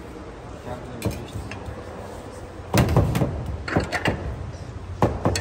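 Ceramic plates being handled and set down on a stainless-steel counter: scattered clinks and knocks, the loudest cluster about three seconds in.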